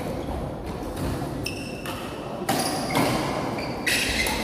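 Badminton rally: several sharp racket strikes on the shuttlecock about a second apart, mixed with short high-pitched squeaks of court shoes on the floor.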